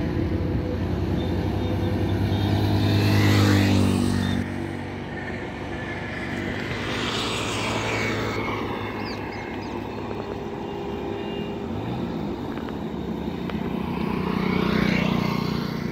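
Highway traffic passing close by. A heavy engine's deep drone is loudest about three seconds in and cuts off abruptly a second later, another vehicle rushes past around seven seconds, and a motorcycle passes near the end.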